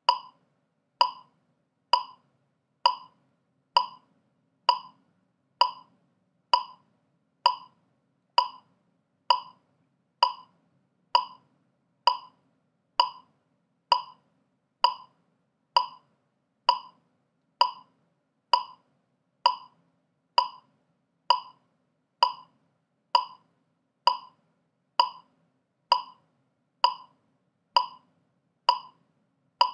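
Metronome click track ticking steadily at 65 beats per minute: one short, identical click a little under a second apart, with no accents.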